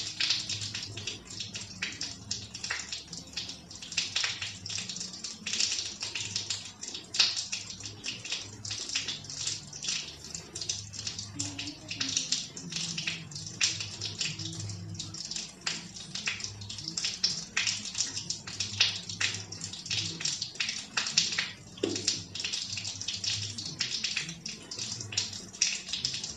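Steady rain falling: a dense, even hiss crackling with many separate drops.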